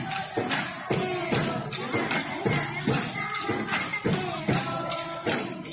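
Folk dance music with a steady beat of sharp percussion strokes, about two a second, over a continuous musical backing with a bright jingling ring.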